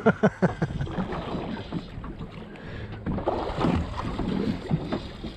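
Open-sea ambience aboard a small boat: wind on the microphone over a low, steady rumble.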